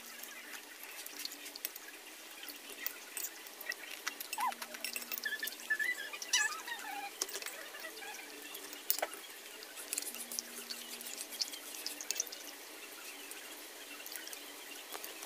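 Mukbang eating sounds: wet chewing of instant noodles, with a metal spoon and fork clinking and scraping on a glass plate in scattered sharp clicks.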